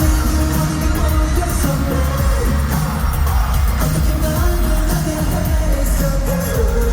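Live pop music with singing over the venue's PA system during a concert sound check, with a steady heavy beat.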